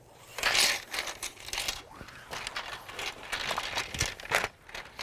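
Rustling of a packing sleeve as the folding canoe's frame rods are slid into it, with scattered light clicks and a sharper knock about four seconds in.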